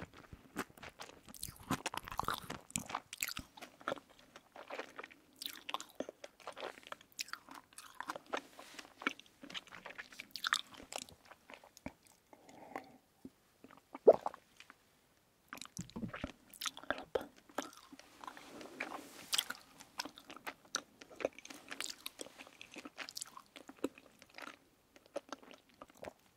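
Close-miked chewing of soft candy (marshmallow and sugar-beaded berry jelly): a stream of small wet, sticky mouth clicks and crackles. There is one sharper click about fourteen seconds in, then a brief pause.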